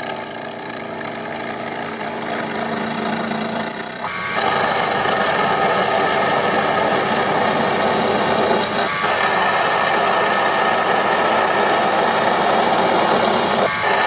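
Proxxon PD 250e mini lathe running and turning a steel shaft, a steady machine hum with cutting noise. A high thin whine stops abruptly about four seconds in, where the sound changes at once, and there is another brief break near nine seconds.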